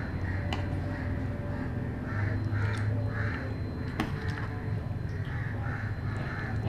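Crows cawing over and over in the background, with two sharp metallic clicks of a steel ladle against the pot, about half a second and four seconds in.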